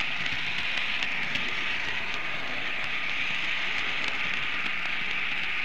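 A Märklin model locomotive running along the layout track, heard from on board: a steady whirring rush of the small motor and wheels on the rails, with scattered faint clicks.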